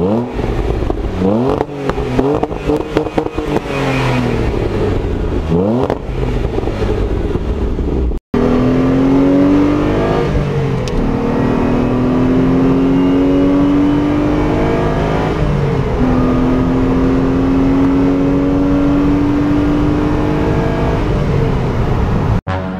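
Renault Clio V6's mid-mounted 3.0-litre V6 revved in several quick blips while standing. After a cut about eight seconds in, it is heard from inside the cabin accelerating steadily, with the engine note climbing and dropping at two upshifts.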